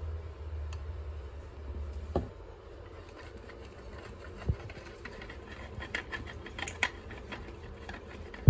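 Wooden coat-rack parts being handled: scattered light clicks and knocks, with sharper knocks about two and four and a half seconds in, over a low rumble that fades after the first two seconds.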